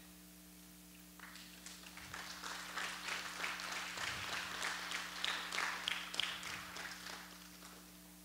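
A congregation applauding. The clapping starts about a second in, swells, then thins out near the end. Under it runs a steady low electrical hum.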